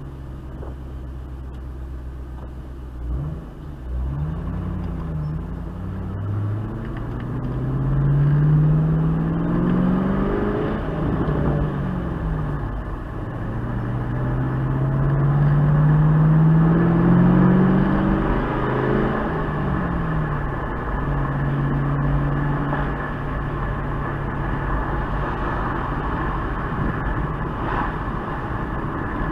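2008 Mustang GT's 4.6-litre V8 through an SLP Loudmouth exhaust, idling, then accelerating twice with the engine pitch climbing over several seconds each time. Each time it comes off the throttle it pops and crackles as the revs drop, then settles to a steady run near the end.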